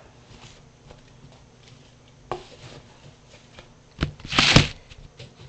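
Rustling handling noise with scattered light clicks, and a short knock about two seconds in. A little after four seconds in comes a loud rustling scrape that lasts about half a second.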